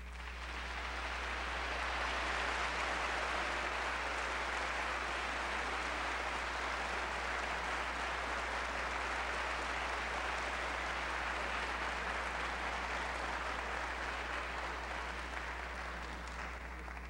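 Audience applauding after a sung piece ends, swelling over the first couple of seconds and dying away near the end, over a steady low hum.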